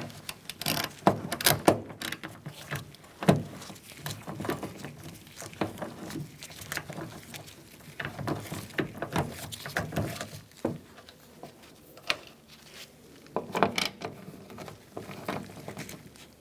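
Irregular clicks, taps and knocks of a hand tool and metal and plastic parts being worked, as the door handle's retaining nuts are taken off with a 10 mm socket.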